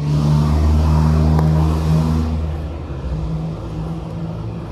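A motor or engine running steadily with a low hum that drops in level a little over two seconds in.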